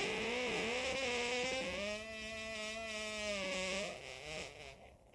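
A long fart with a held, wavering pitch that rises a little in the middle and trails off about four seconds in.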